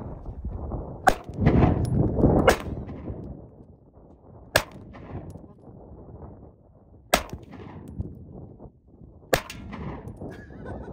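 Five single shots from a Canik Mete SF 9mm pistol, spaced irregularly one and a half to two and a half seconds apart, with a metallic clang from the steel targets.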